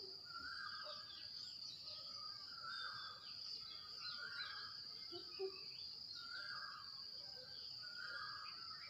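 Outdoor birdsong: a repeated call about every second and a half, with scattered chirps from other birds, over a steady high-pitched insect drone.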